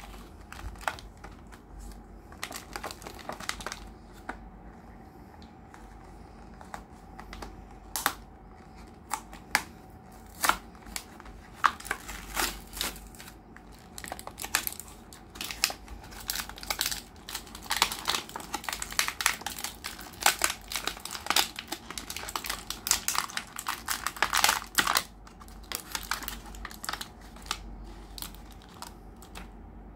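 Clear plastic blister packaging crinkling and crackling as it is handled and peeled away from its cardboard backing card. The sharp crackles and clicks come irregularly and are thickest in the middle stretch, then thin out near the end.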